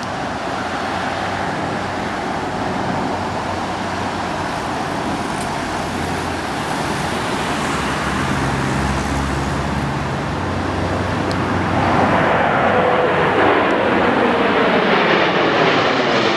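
Steady traffic-like roar. About 12 s in, a jet aircraft grows louder and passes, its pitch falling toward the end.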